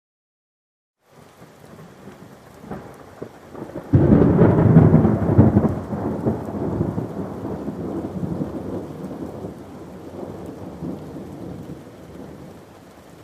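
Thunderstorm: rain falling steadily, broken about four seconds in by a loud thunderclap whose rumble slowly dies away over the following seconds. The first second is dead silence before the rain comes in.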